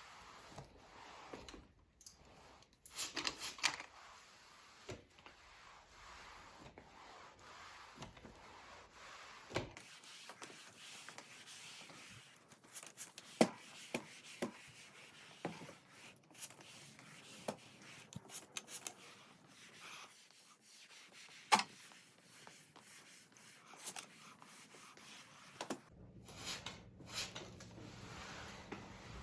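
Household objects being handled: light rubbing with scattered small clicks and knocks, a quick cluster of them a few seconds in and single sharper ticks later on.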